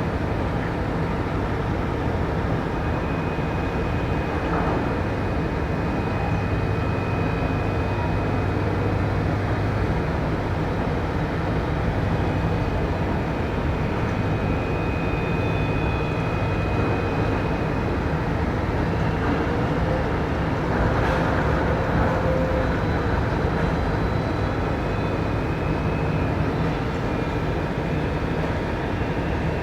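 Steady machinery drone of container loading by a port container crane at a ship's hold, with a faint high whine that comes and goes.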